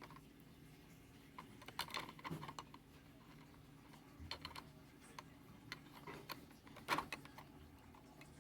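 Light clicks and taps of small hard parts being handled during a clothes-iron repair, coming in irregular clusters, with the sharpest click about seven seconds in.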